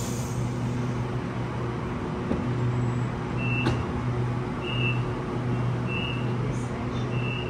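A vehicle's engine or motor giving a steady low hum. In the second half there are four short high-pitched beeps, a little over a second apart.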